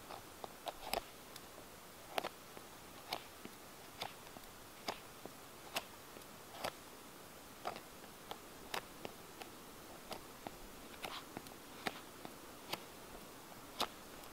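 Knife blade cutting the hard outer crust (cuticle) off a piece of horse's hoof fungus (Fomes fomentarius): short, sharp clicking cuts, irregular, about one or two a second.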